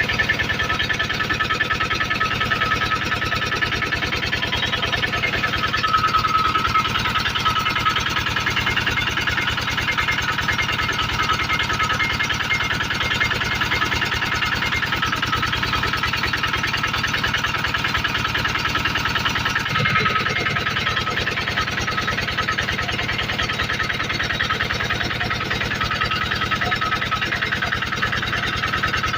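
Generator engine running steadily at constant speed, a fast, even firing rattle with a constant whine over it. About twenty seconds in, the tone shifts briefly.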